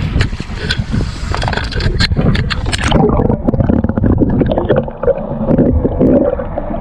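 Small fishing boat on the open ocean: water splashing and knocking against the hull, with wind on the microphone. About three seconds in the sound turns to a lower, steadier rumble.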